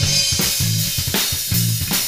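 Drum kit and bass guitar improvising a funk groove: kick and snare strikes with cymbals over a line of held low bass notes.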